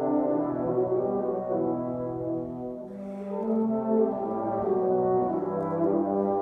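Brass ensemble of trombones and tuba playing slow, held chords that change every second or so. The sound dips briefly about three seconds in, then swells again.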